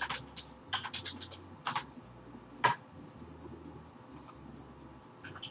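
Clicking and tapping on a computer keyboard, in a few short clusters over the first three seconds with the loudest click nearly three seconds in. A quieter stretch with only a low hum follows, and the clicks start again at the very end.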